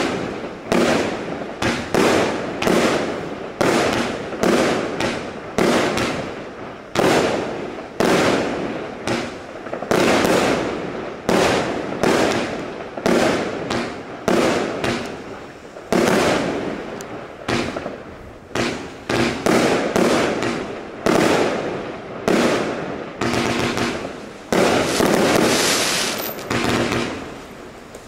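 A 75-shot compound fireworks cake (Pangu Fireworks Cosmopolis) firing a steady run of shots, roughly one to two a second. Each shot is a sharp report with a fading tail. The shots run together into a denser, more continuous sound near the end.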